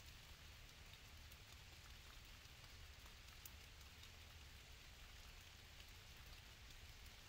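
Near silence: a faint steady hiss with a low hum underneath and a few faint scattered ticks.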